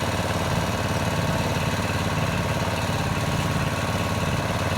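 Engine-driven hydraulic pump unit running steadily while a jack cylinder is switched on, pushing piers to lift a settled brick wall.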